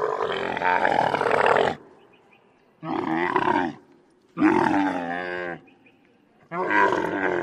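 A camel calling in four separate bouts: a long, wavering call of about two seconds, then three shorter ones of about a second each, with short pauses between.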